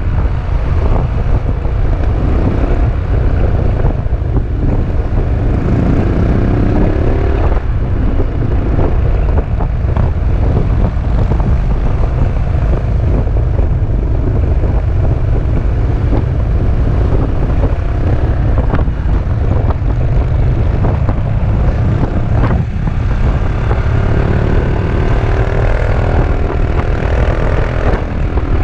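Wind buffeting an action-camera microphone on a moving Peugeot Metropolis three-wheel scooter, with its single-cylinder engine note underneath. The engine note rises in pitch about a fifth of the way in and again near the end as the scooter accelerates.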